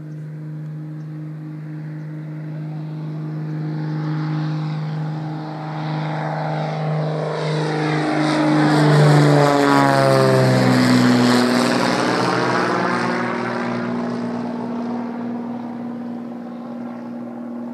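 Single-engine V-tail Beechcraft Bonanza's flat-six piston engine and propeller climbing out after takeoff. The steady engine note grows louder as the plane approaches, drops in pitch as it passes overhead about ten seconds in, then fades as it flies away.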